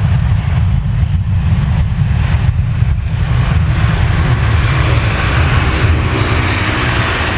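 Boeing 737 jet engines at high thrust on the runway: a loud, deep rumble, with the engines' higher hiss swelling from about four seconds in.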